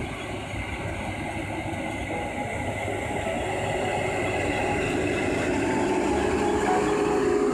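New Holland T7.200 tractor's diesel engine running under load as it pulls a Krone round baler working through the hay. It grows steadily louder as the rig drives up and passes close by.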